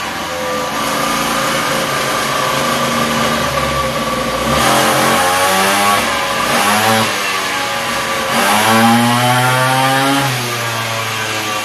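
Mini ATV's small engine revved on a roller dyno in several pulls, the pitch climbing with each one during a power run. The longest pull comes near the end and drops back to a lower idle about ten seconds in.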